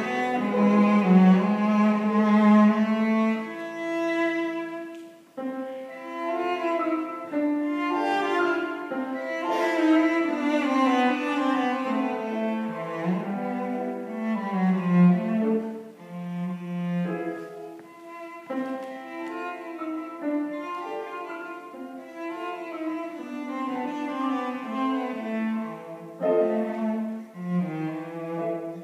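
Cello and Fazioli grand piano playing a classical sonata together, the bowed cello holding long notes over the piano part.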